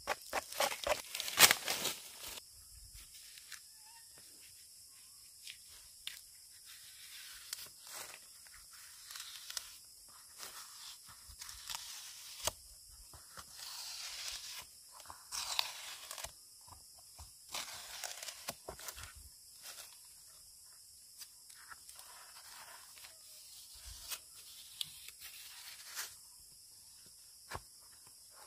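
Bark being ripped off a tree trunk by hand in long strips. There is a loud run of tearing and cracking in the first two seconds, then intermittent rips and snaps, with a longer rasping tear about halfway through.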